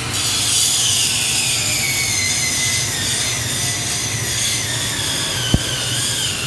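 Electric grinder motor running a flywheel generator rig: a high whine that slowly falls in pitch over a steady low hum, as the machine gradually loses speed. One sharp click about five and a half seconds in.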